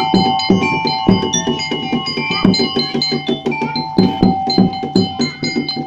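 Topeng monyet street-show music: a drum beating a steady rhythm, about two strong beats a second, with ringing chime-like tones struck over it.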